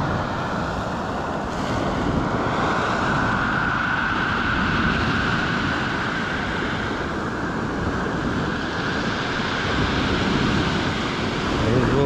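Stormy sea surf breaking and washing up a pebble beach, a continuous heavy rush of water, with wind buffeting the microphone.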